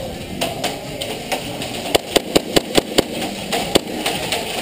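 Airsoft guns firing: a few scattered sharp pops, then a quick string of about eight loud shots at roughly five a second, followed by a couple more.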